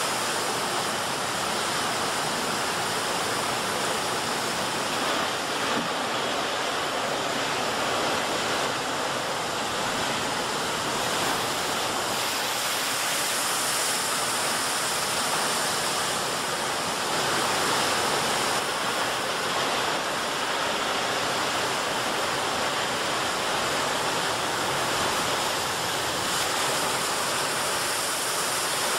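Steady rushing, churning water with no breaks, swelling slightly now and then.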